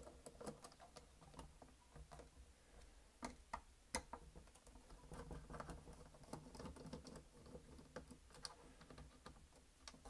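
Faint, irregular clicking and tapping of a hand screwdriver backing screws out of a Roomba robot vacuum's plastic bottom cover, with a few sharper clicks about three to four seconds in.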